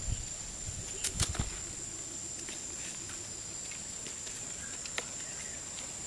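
A few sharp knocks and clicks from handling a wooden stick and a plastic basket on sandy ground: one at the start, a quick cluster about a second in, and a single click near the end. A steady high-pitched whine sounds throughout.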